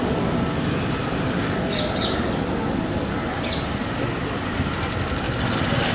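Street background noise with a steady traffic hum, and a few short bird chirps about two seconds in and again at about three and a half seconds.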